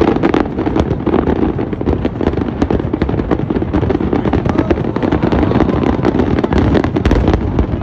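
Rapid barrage of aerial firework shells bursting in the sky, a dense run of booms and crackling with no gaps between them.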